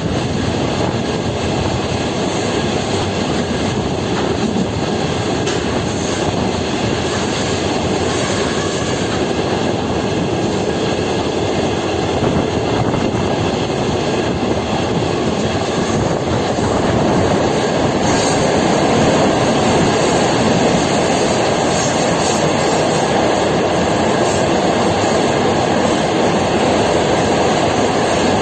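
A train running at speed: a steady roar of wheels on rails and rushing air, growing a little louder about two-thirds of the way through.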